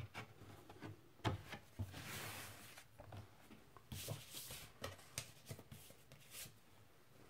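Faint rustling and light taps of paper and cardboard being handled: a vinyl LP's printed insert and record jacket. There is a sharper tap about a second in, and short rustles come in a few spurts.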